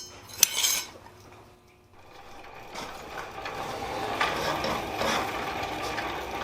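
A sharp metallic clink about half a second in, then from about two seconds in a steady mechanical running noise that builds up and holds.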